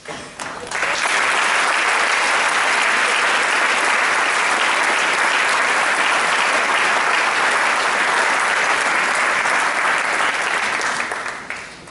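Audience applauding, loud and steady, building up within the first second and dying away near the end.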